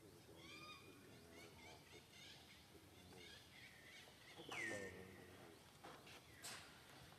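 Faint high-pitched animal calls: short chirps, then one louder squeal about four and a half seconds in that falls in pitch and levels off.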